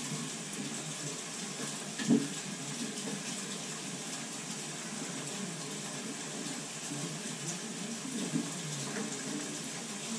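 Water running steadily in a shower whose supply is still on, while the valve is worked on. There is one short knock about two seconds in.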